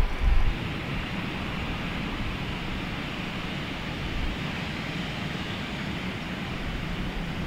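Steady rumble and hiss of a jet airliner's engines, with heavier low thumps in the first half-second.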